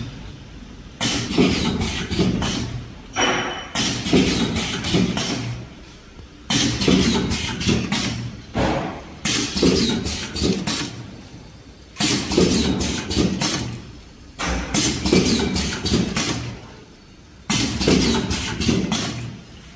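Vertical form-fill-seal liquid packaging machine with a pneumatic metering pump running through its cycle. Each cycle is about two seconds of clattering with air hiss, then a short lull, repeating regularly about every 2.7 seconds.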